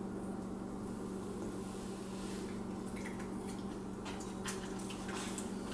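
A dog eating a piece of grilled chicken off a plate: wet chewing and licking, with small smacking clicks that come more often in the second half, over a steady low hum.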